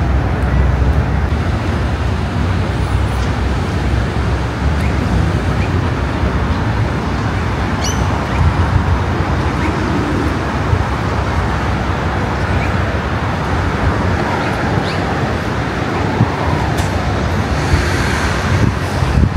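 Steady road traffic noise with a low rumble and no single vehicle standing out.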